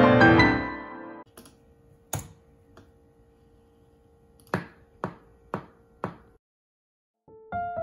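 A digital piano passage breaks off about a second in, then about seven sharp taps on a computer keyboard over a faint steady tone, with a short silence after them; piano playing starts again near the end.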